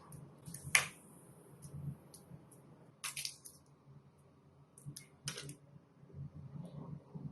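Slime being squished and pressed by hand, giving scattered sharp wet pops and clicks; the loudest comes about a second in, with others around three and five seconds in.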